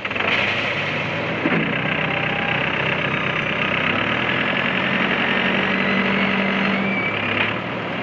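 Komatsu WB140-2N backhoe loader's diesel engine running steadily while the machine drives and lifts its front loader bucket.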